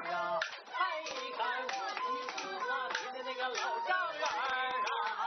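Singing in a northeastern Chinese errenzhuan folk performance, with sharp claps keeping a steady beat of about three a second.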